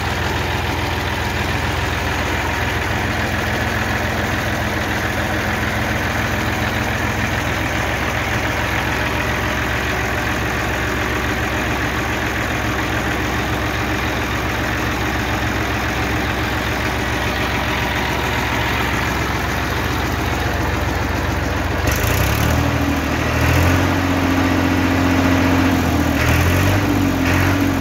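Massey Ferguson 7250 DI tractor's diesel engine idling steadily. About 22 seconds in, its note changes and it runs a little louder.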